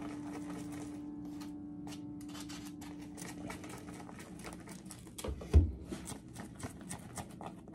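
Chopsticks clicking and scraping against a plastic natto pack as sticky natto is stirred and worked out of it, a quick run of small clicks. One dull thump about five and a half seconds in.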